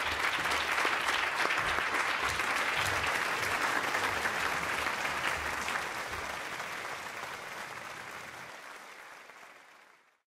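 Audience applauding, a steady patter of many hands clapping that fades away over the last few seconds.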